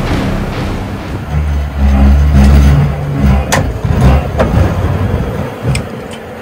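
Off-road vehicle engine running and revving in uneven spurts, loudest a second or two in, with a few sharp knocks.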